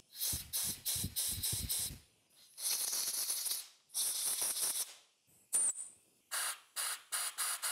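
Compressed air from a blow gun blasted into the passages of an outboard carburetor body to clear them. It comes as a quick run of short puffs, then two hisses of about a second each, then more short puffs near the end.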